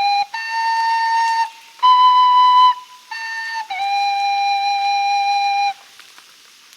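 Flute played as a simple, unskilled tune: about five long held notes with short gaps, stepping up and then down in pitch, the last note the longest and stopping near the end.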